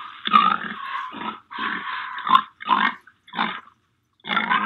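Recorded pig grunting and oinking in a run of short calls, with a brief pause about three and a half seconds in.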